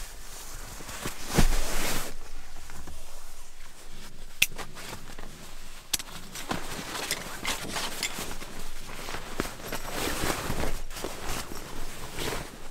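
Quilted iKamper rooftop-tent insulation liner being unstrapped and unrolled by hand: rustling, swishing fabric with a few sharp clicks.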